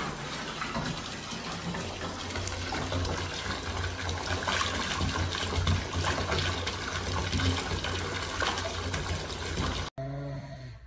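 Water running steadily, a dense rushing noise that cuts off suddenly near the end.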